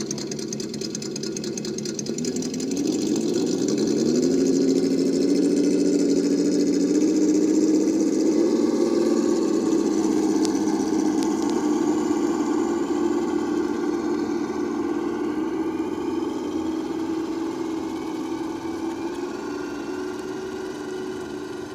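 Simulated engine sound from an ESS-Dual Plus sound module on an RC Traxxas TRX-4 Chevy Blazer, played through the truck's speaker as it pulls a boat trailer. The engine note rises in pitch over the first few seconds, then holds steady and grows fainter toward the end as the truck drives away.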